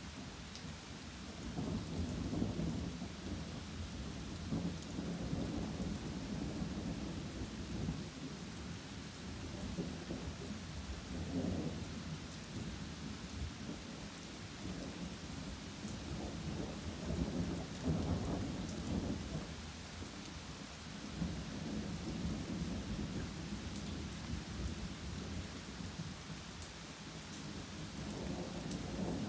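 Steady rain falling on trees and ground, with thunder rolling again and again, each long low rumble swelling and fading.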